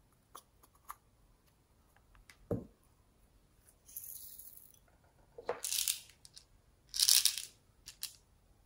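Small plastic toy containers being handled, clicked and shaken, their glitter and beads rattling out onto a glass dish of slime; scattered light clicks, then two louder rattling bursts past the middle.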